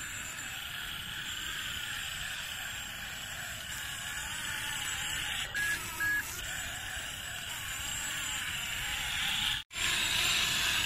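Small electric motors of a toy RC excavator whirring as it tracks and digs in sand, over a steady hiss, with two short beeps about halfway through. The sound cuts out for an instant near the end.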